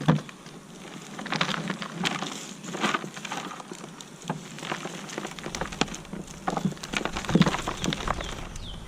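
Loose potting soil rustling and crackling as hands dig and sift through a potato grow pot, in an irregular patter of small scrapes and crumbles.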